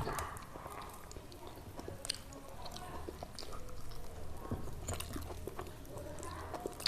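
A person chewing and biting food close to the microphone: a string of small wet clicks and smacks of the mouth working on rice, chicken curry and salad.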